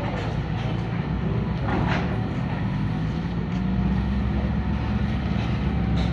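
Excavator's diesel engine running steadily while it works, dredging mud from a river channel.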